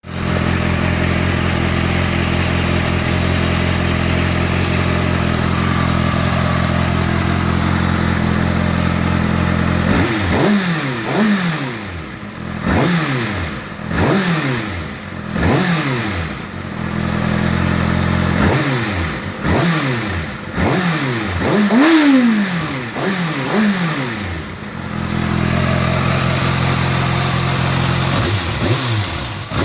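Kawasaki ZX-6R inline-four motorcycle engine, fully warmed up, idling steadily, then revved in a long series of quick throttle blips, each rise in revs falling straight back to idle, before settling to idle again and one more blip at the end. The engine has a ticking noise that the owner is recording.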